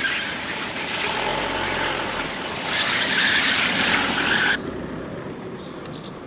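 Steady rushing outdoor street noise, of a kind like passing traffic, that grows louder about three seconds in and cuts off abruptly at about four and a half seconds.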